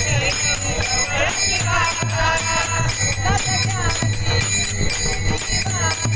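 Kirtan devotional music: a singing voice glides through ornamented phrases over small hand cymbals clashing in a steady rhythm, about four strokes a second, with a low drum beat and held steady tones underneath.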